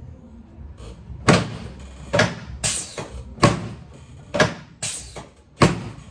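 Chiropractic drop table clacking: about seven sharp knocks, roughly one a second, as the table's spring-loaded section drops under the chiropractor's thrusts on the lower back and pelvis.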